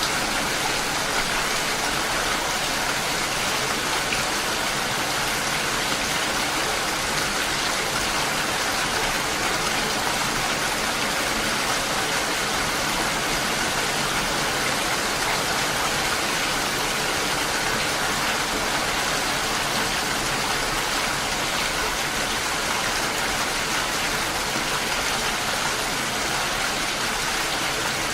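Steady rain, an even hiss of falling water that does not change.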